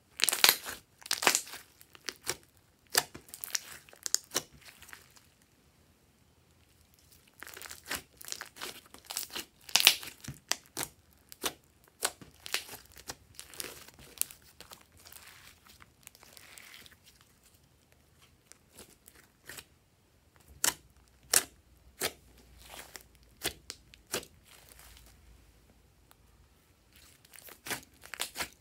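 Glossy slime being squeezed and kneaded by hand, giving irregular runs of sharp clicks and pops, with a couple of short pauses.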